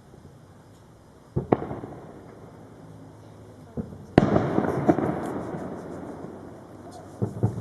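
Fireworks display heard at a distance: several booms, the loudest about four seconds in, followed by a long rolling rumble that dies away with faint crackling, then two more booms near the end.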